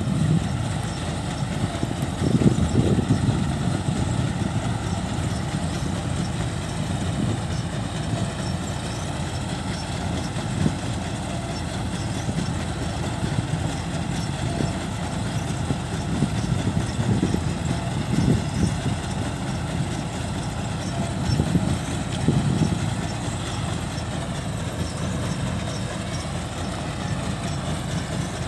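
Two Kubota rice combine harvesters (a DC-105X and a DC-70) running steadily while stopped, their diesel engines giving a low, even drone with a faint higher whine above it.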